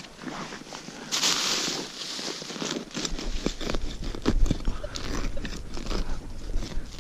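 Digging into forest soil and leaf litter to recover a metal-detector target: a scraping rush about a second in, then a run of crunching cuts and small knocks.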